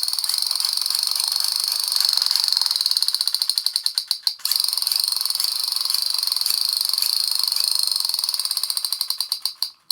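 Toy sound gun firing with the trigger held: a fast, high-pitched buzzing rattle that sounds like a motorbike. It stops briefly about four seconds in, starts again, and slows and fades near the end.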